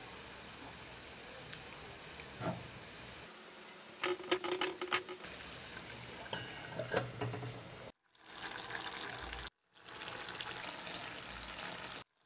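Pork and fermented bamboo shoot stew simmering in an iron karahi, a steady sizzling hiss. Partway through come clinks and rattles of a steel lid being set on the pan.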